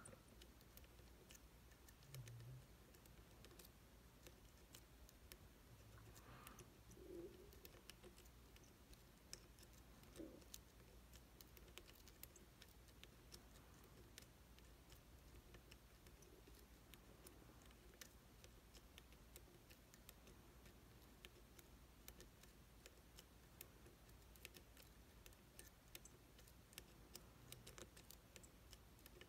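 Faint, irregular small clicks of a lock pick and tensioner working the pins inside an IZIS pump lock, against near silence.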